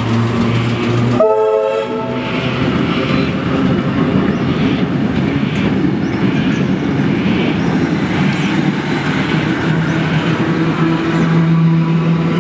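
Heritage Tait electric train moving past along the platform. A short warning blast sounds about a second in, then a run of regular wheel clicks over rail joints under a steady motor hum.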